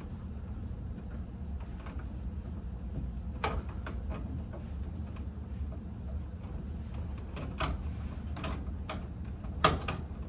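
Scattered small clicks and taps of hand tools and wire being worked inside an electrical breaker panel, a few clustered in the middle and the loudest near the end, over a steady low hum.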